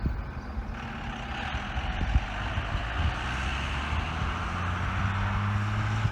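Helicopter droning steadily, with a rushing hiss that comes in about a second in and slowly grows louder.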